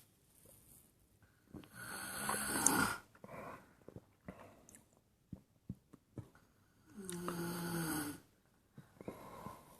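A person snoring: two long snores about five seconds apart, the second with a low drone, and faint clicks in between.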